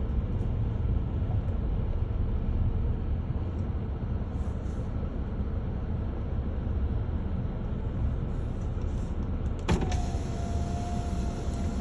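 Steady low rumble of outdoor background noise. About ten seconds in comes a sharp click, followed by a steady mid-pitched tone that holds to the end.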